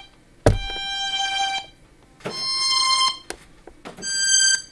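A pitched, buzzy sample triggered from Maschine drum-machine pads: three separate notes, each held about half a second to a second, stepping up in pitch, the first starting with a sharp thump. This is the sample being auditioned after it has been trimmed shorter.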